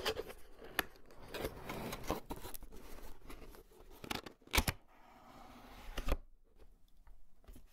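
A keyboard box being opened by hand: the lid scraping and rustling, with scattered sharp clicks and taps, the loudest about four and a half seconds in.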